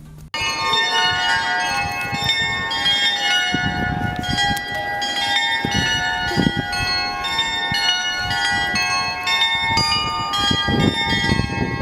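Town hall carillon bells playing a tune, many ringing notes overlapping one another, starting suddenly just after the beginning. This is the chime that goes with the wall's mechanical figure display, which the speaker calls a little cuckoo-like show.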